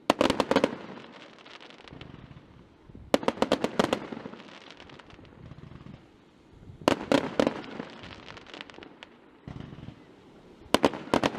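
Fireworks display: four volleys of rapid sharp cracks, each a quick string of reports about half a second long, coming roughly every three and a half seconds, with a low rumbling echo between them.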